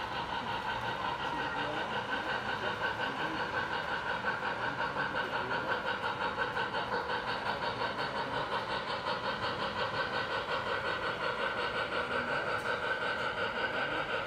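Model trains running on the layout: a steady motor and gear whine with an even rapid pulse, about five a second.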